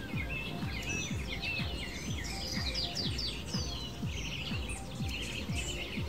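Small songbirds chirping and twittering in quick, overlapping calls, over background music with a low repeating pulse.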